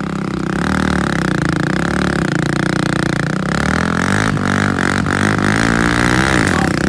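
Kawasaki Mule and Kawasaki Bayou 220 ATV engines revving hard under load as they pull against each other in a tug of war, their pitch wavering; two sharp clicks midway.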